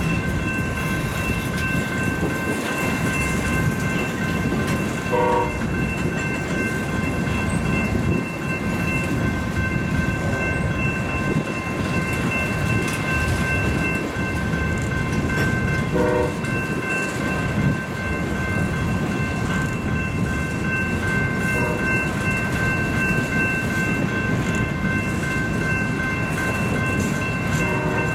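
Covered hopper cars of a grain train rolling past: a steady rumble and clatter of steel wheels on the rails. Several steady high tones sit over the rumble throughout.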